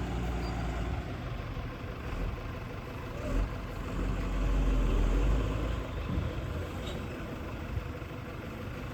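Heavy diesel engine running steadily, swelling louder for a second or so about four seconds in.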